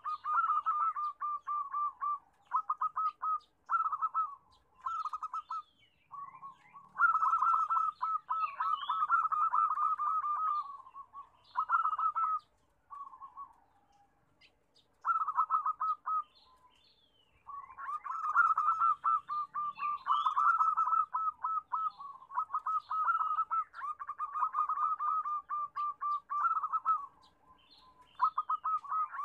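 Zebra dove cooing: fast runs of short, staccato coos at a steady pitch, in phrases from about a second to several seconds long, with a pause of a few seconds midway.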